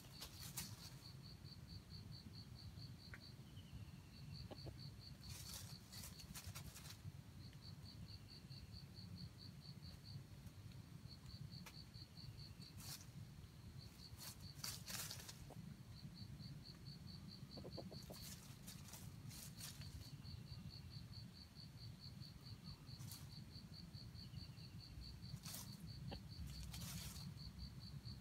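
Faint insect trilling: a high, steady, pulsed chirp repeating in long trains. A fainter falling chirp comes every few seconds, and there are several short rushes of rustling noise a few seconds apart, the longest about a second.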